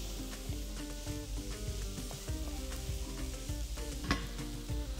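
Chopped chorizo, onion and bell pepper sizzling in a frying pan in the chorizo's own fat, with a wooden spoon scraping and clicking against the pan as the parsley is stirred in.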